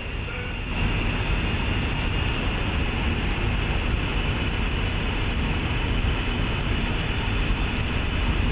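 Heald Model 576 gap-bed internal grinder running under power: a steady mechanical hum and hiss that dips briefly near the start.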